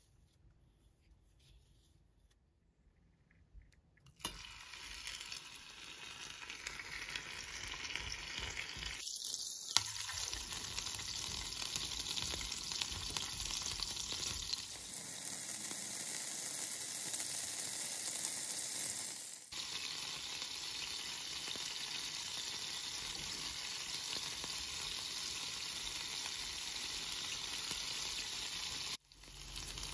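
Zucchini and carrot fritter batter sizzling steadily as it fries in oil in a nonstick pan. The sizzle starts about four seconds in and breaks off briefly a few times.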